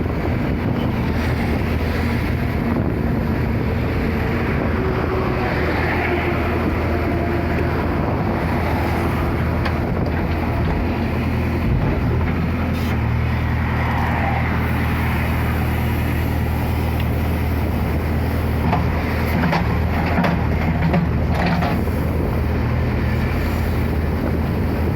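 Backhoe loader's diesel engine running steadily, with a few short knocks about halfway through and again near the end.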